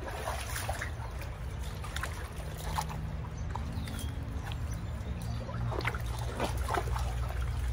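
Steady rush of a flowing stream, with a low rumble underneath and a few faint clicks.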